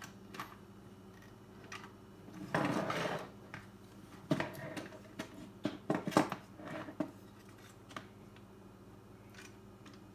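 Small plastic and metal parts of a car radio unit being handled and pried apart: a short scrape, then a run of sharp clicks and clacks, the loudest about six seconds in.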